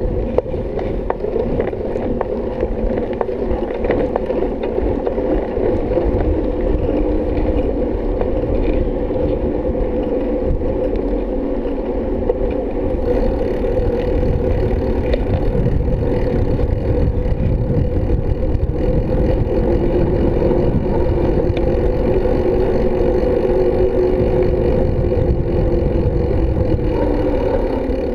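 Riding noise from a bike rolling along a paved road: a steady droning hum over a low rumble, the hum dropping in pitch over the last few seconds as the bike slows.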